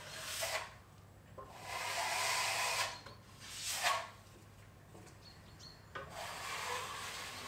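Steel plasterer's trowel scraping wet plaster across plasterboard joints in four sweeping strokes, the second the longest, spreading and feathering a second coat over the joints.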